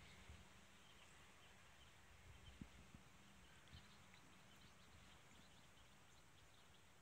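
Near silence: faint outdoor background with faint, short high ticks and a couple of soft low bumps.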